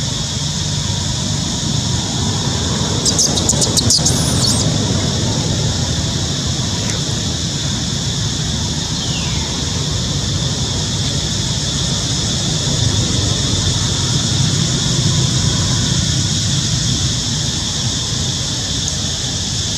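Steady outdoor background: a low rumble like distant road traffic under a constant high-pitched drone, with a brief burst of rapid high clicks about three seconds in and a short falling chirp near the middle.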